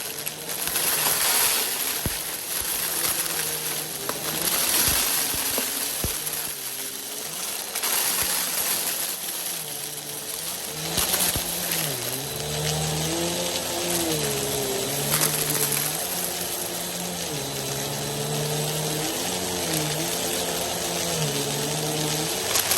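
Vacuum cleaner with its brushroll running, sucking up dry rice, macaroni and beans, the hard bits clicking and rattling as they are picked up. About halfway through, a humming tone comes in over the noise and keeps rising and dipping in pitch.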